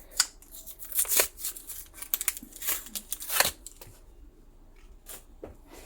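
Pokémon booster packs and their packaging being handled: a run of sharp crinkles, clicks and rustles over the first few seconds, thinning out to a single crinkle near the end.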